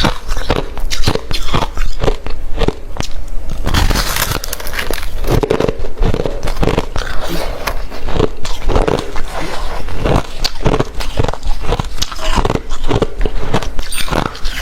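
Close-miked biting and chewing of hard refrozen crushed ice: a rapid, irregular run of loud crunches, several a second, with a bigger crunch about four seconds in.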